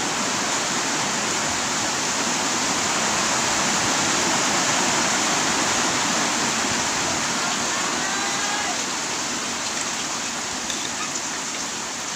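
Heavy rain pouring down, a loud, steady hiss that eases slightly in the last few seconds.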